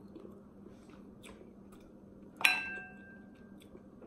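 Quiet chewing with faint mouth clicks over a low steady hum; about two and a half seconds in, a single sharp clink rings out briefly, like something tapping a glass bowl.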